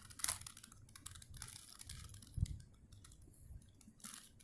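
4x4 Rubik's cube being turned by hand: a quick, irregular run of light plastic clicks and clacks as its layers are twisted through an algorithm.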